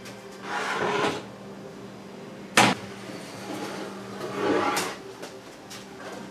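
Wooden boards being handled on a bench: a scraping slide, a single sharp knock as a board is set down, then another scraping slide.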